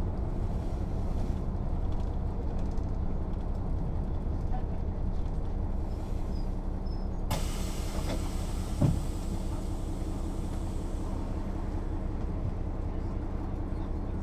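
Mercedes-Benz O 407 city bus running on its route, its diesel engine and road noise going steadily. About seven seconds in a hissing noise sets in for a few seconds, and near nine seconds there is a single thump.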